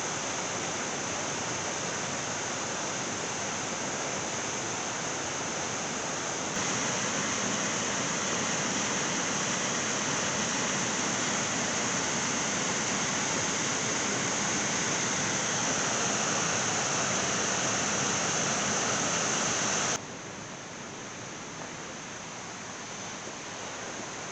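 Waterfall rushing: a steady noise of falling water that gets suddenly louder about six seconds in and drops suddenly quieter about twenty seconds in.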